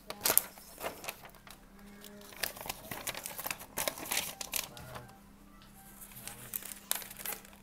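Paper workbook pages being turned and handled: irregular rustling and crinkling with sharp paper crackles, the loudest a fraction of a second in.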